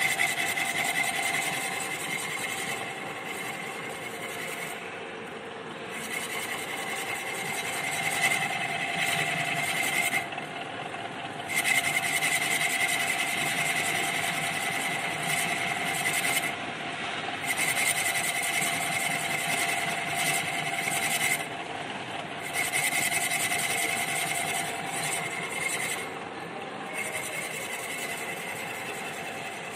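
Metal-cutting machine tool running with a steady whine. A hissing cutting noise comes in repeated passes of a few seconds each, separated by short pauses.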